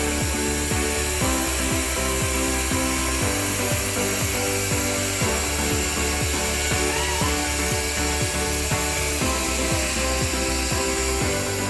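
Background music over the steady hiss of a semi-automatic plastic welding machine welding the seams of a duct connector's bellows. The hiss fades near the end, leaving the music.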